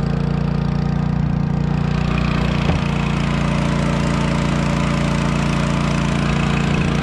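A fishing boat's engine running steadily at a constant speed, with no change in pitch.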